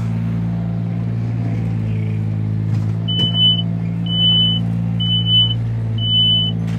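Tractor engine sound effect idling steadily. About three seconds in, a reversing beeper starts, beeping four times at about one beep a second.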